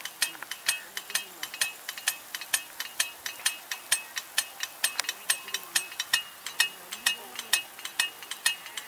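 Rain gun irrigation sprinkler running, its drive arm clicking rapidly and a little unevenly, about four or five sharp clicks a second.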